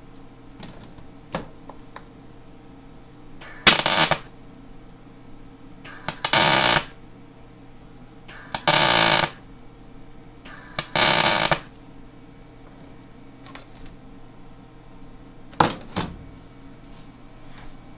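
MIG wire-feed welder laying a few short welds to fill a small divot in a steel yoke: four bursts of arc crackle, each under a second, then two very short bursts near the end. A steady low hum runs underneath.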